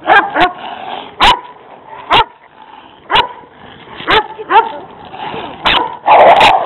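Dog barking in short, sharp barks about once a second, with a louder, denser flurry near the end.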